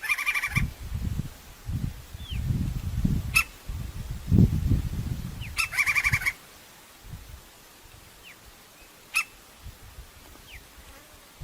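Crimson-crested woodpecker calling: a short rattling call at the start and another about six seconds in, with single sharp call notes between them. A low rumbling noise runs under the first half.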